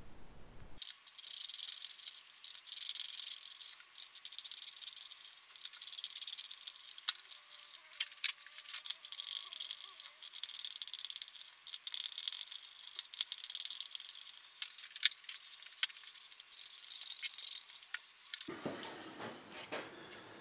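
Screws being backed out with a screwdriver and loose metal guitar hardware (a Telecaster bridge and pickup with their screws) clicking and rattling as it is taken off the body; the sound is thin and high with no low end. Near the end it changes to a fuller, lower noise.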